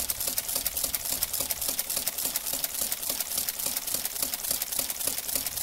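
Olivetti Multisumma 20 electromechanical adding machine cycling through a multiplication, its motor-driven racks and mechanism clattering in a fast, even run of clicks, several a second.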